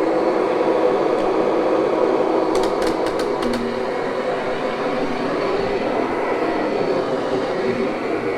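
Kirby upright vacuum cleaner running steadily as it vacuums and grooms a carpet, its motor giving a steady hum over a rush of airflow. A few sharp clicks about three seconds in.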